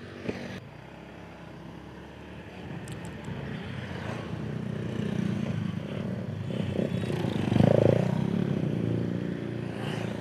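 Motorcycle engine running while riding along a road, with wind noise on the microphone, the rumble building up over the first several seconds and loudest about eight seconds in, after a short click at the very start.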